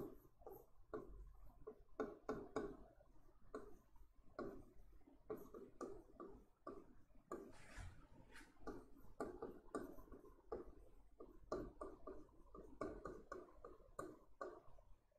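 Marker pen writing on a whiteboard: faint, irregular short strokes and taps as words are written out.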